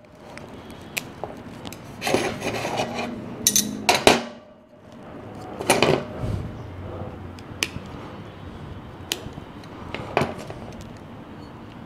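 Hands working in an azalea's root ball, pulling and breaking away a dry root: two rustling scrapes in the first half, then single sharp clicks every second or two.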